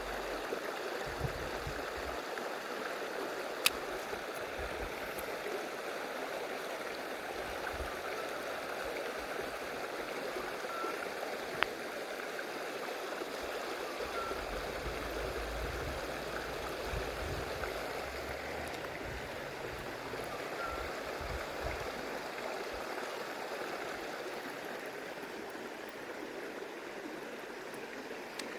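Stream water running steadily over rocks, with two sharp clicks, one about four seconds in and one about twelve seconds in.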